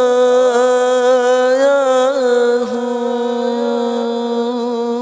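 Solo male naat singer holding one long sung note into a microphone, with a short wavering ornament about two seconds in; the note then eases slightly quieter and carries on.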